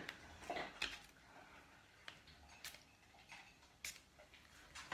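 A few light, sharp clicks and small handling noises from a small perfume sample vial and its cap being worked in the hands.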